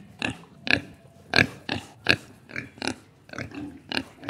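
Pigs grunting: a run of short, sharp calls, about two a second.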